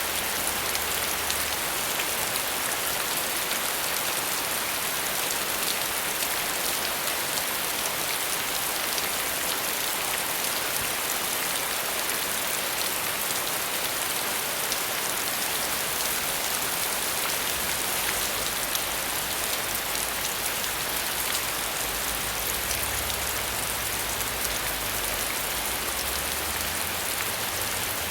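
Steady rain falling, an even hiss with fine drop patter throughout.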